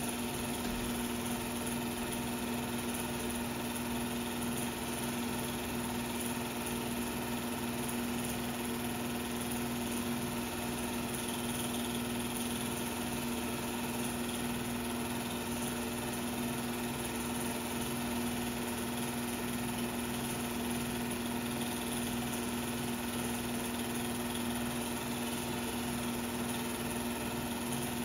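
16mm film projector running: a steady mechanical whirr with a constant low hum, unchanging throughout.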